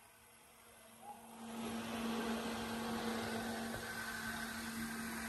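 Genie GTH-5519 telehandler's diesel engine running with a steady hum. It gets louder about a second and a half in.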